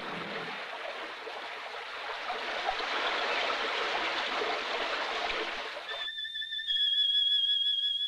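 Rushing, gurgling stream water, which cuts off abruptly about six seconds in. A high, steady whistling tone takes over, wavering slightly.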